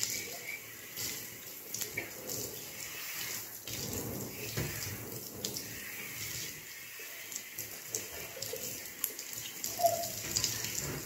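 Running water splashing through wet hair as conditioner is rinsed out: a steady rush broken by irregular splashes.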